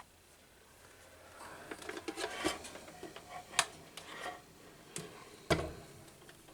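A plastic-and-metal table fan being handled and turned over: rubbing and scraping, a few sharp clicks and knocks, and a heavier thump near the end as it is set down.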